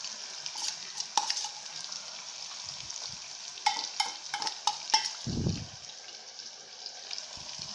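Fish pieces frying in oily masala gravy in an aluminium pressure-cooker pan, with a steady sizzle. A spoon clinks against the pan several times, quickly in a row from about 3.5 to 5 seconds in, and there is a dull thump just after 5 seconds.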